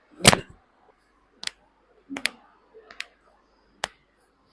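Joints cracking during a chiropractic adjustment: one loud sharp crack with a thump just after the start, then several smaller sharp clicks.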